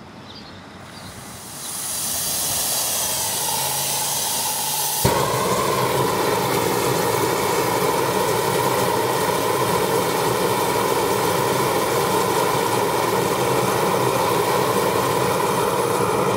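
Red Dragon propane weed torch burning with a steady hiss. It grows louder about two seconds in and jumps suddenly to a louder, fuller burn about five seconds in. This is the torch's full working flame at normal pressure, after the excess flow check valve in the tank's POL fitting has reset.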